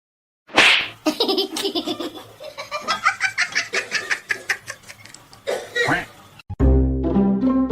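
A person laughing hard in rapid, pulsing bursts for several seconds, starting suddenly. About six and a half seconds in, the laughter stops and background music with plucked bass notes begins.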